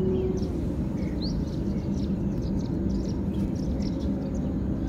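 Steady low background rumble with a faint hum, and a few short, high rising chirps from small birds scattered through it.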